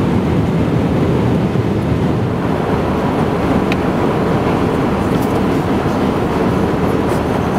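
Steady cabin noise inside an Airbus A319 airliner in flight: a constant low drone of the jet engines and the airflow over the fuselage, heard from a window seat over the wing.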